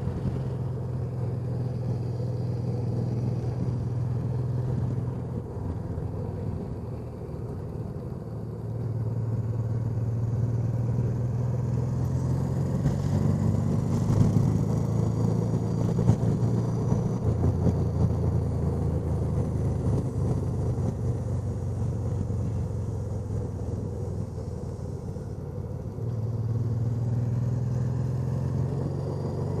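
Honda Deauville NT650V motorcycle's 647 cc V-twin running under way on the open road, its note rising and falling with the throttle, with wind noise over the microphone.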